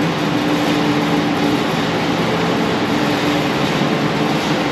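Building ventilation droning steadily, with a low hum under a broad hiss.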